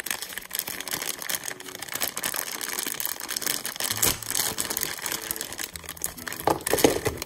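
Clear plastic bag crinkling and rustling as hands open it and pull out small plastic toy pieces.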